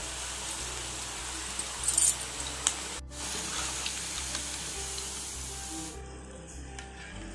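Onion fritters deep-frying in hot oil, a steady sizzle, with a few sharp metal clinks of the slotted skimmer about two seconds in. Background music plays underneath, and the sizzle thins out near the end.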